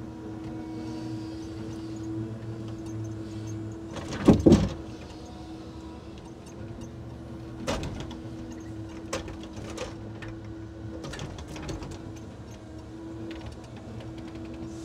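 Timber truck's loader crane at work: the hydraulics run with a steady hum while the grapple handles bundles of sawn timber. A loud clattering knock comes about four seconds in, and a few lighter knocks follow later.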